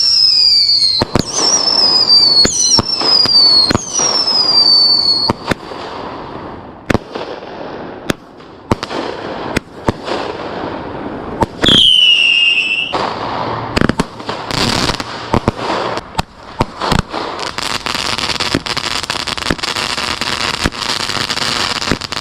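Fireworks going off. Several falling whistles sound in the first five seconds and another about twelve seconds in, among sharp bangs. From about thirteen seconds on there is a dense run of rapid crackling pops.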